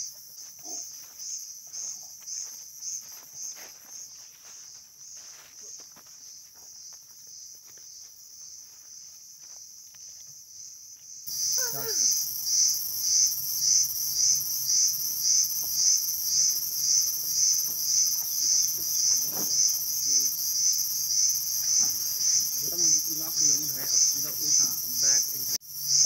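Insects chirring in a high, steady pulsing trill, about three pulses a second, that becomes suddenly louder about eleven seconds in.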